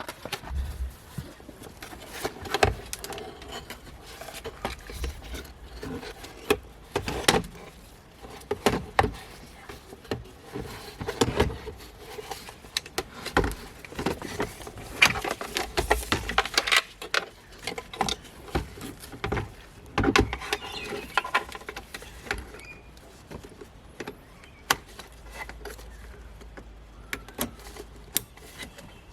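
Plastic centre-console trim cover being handled and fitted back into place: irregular clicks, knocks and rattles, some sharp and loud, scattered throughout.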